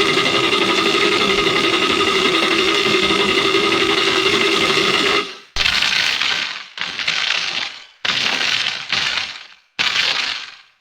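Edited sound effects: a steady buzzing tone that cuts off about five seconds in, followed by five separate noisy hits, each starting sharply and fading away over about a second.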